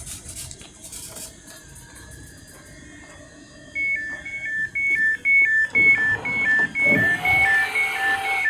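Electronic beeping that alternates a high and a low note, about two pairs a second, starting about four seconds in, with a short rising tone partway through.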